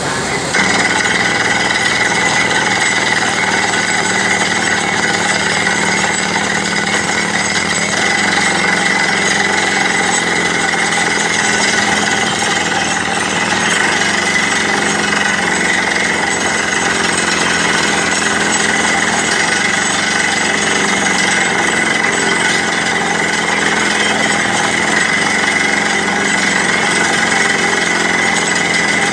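Borewell drilling rig drilling into rock: a loud, steady hammering rattle from the drill, with a constant high whine over it. The noise steps up about half a second in and then holds.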